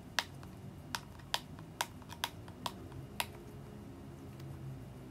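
Light clicks and taps from a small cardboard box of incense cones being handled and opened, about seven irregular clicks in the first three seconds, then it goes still.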